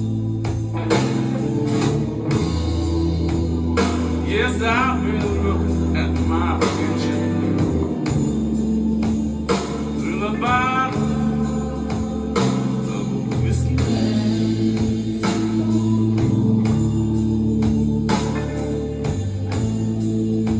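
Blues music played back through an 801A-driven 801A valve amplifier: steady bass and organ chords with electric guitar, and a few sliding melodic phrases partway through.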